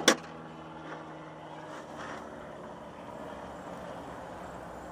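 A short sharp double knock at the start, then a steady low motor hum under outdoor background noise.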